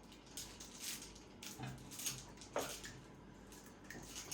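Faint, scattered taps and rustles of an eggshell being handled and pulled open over a bowl after it was cracked.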